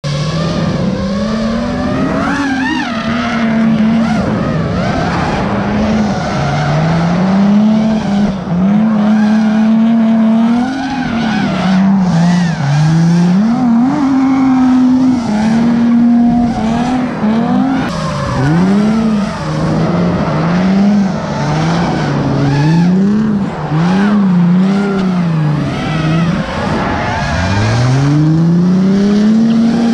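Drift car engines revving hard, over and over: the pitch climbs, holds near the top, then drops as the throttle is lifted and reapplied through the slides, with tire squeal over it.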